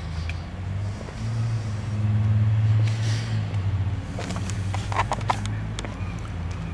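Diesel engine of a John Deere backhoe loader idling with a steady low drone, louder for a moment about two seconds in. A few sharp clicks come about four to five seconds in.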